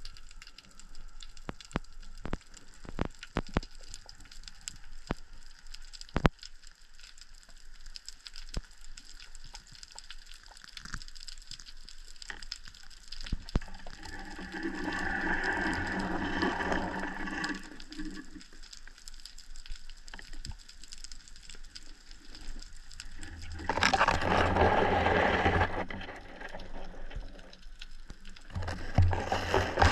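Underwater ambience picked up by a camera mounted on a speargun: many scattered sharp clicks and crackles over a faint hiss, with louder stretches of rushing water-and-movement noise about halfway through and again near the end.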